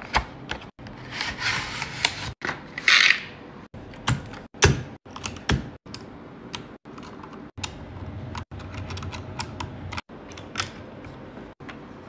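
Keys of a compact mechanical keyboard being pressed: irregular sharp clacks, with a short rustling noise between about one and three seconds in.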